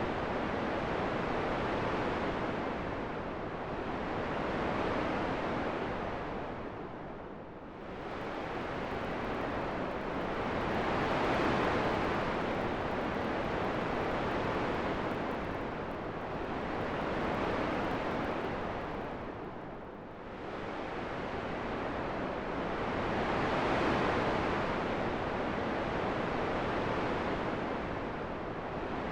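Wind: a steady rushing noise that swells and eases in slow gusts a few seconds long, dipping briefly twice.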